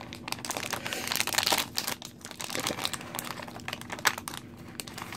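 Crinkly plastic wrapper of a Crusty Chocolate Bar toy blind pack being torn open and crumpled by hand: a dense run of irregular crackles, busiest in the first couple of seconds.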